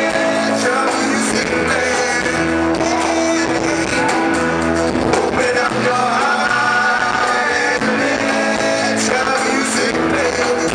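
Live band playing a song: a man singing over a strummed acoustic guitar, with electric bass and drums.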